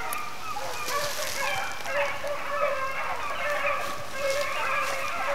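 A dense chorus of many animals calling at once, short wavering calls overlapping without a break.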